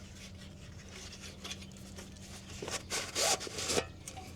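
Rubbing and scraping of camping gear being handled, with a few louder scrapes about three seconds in.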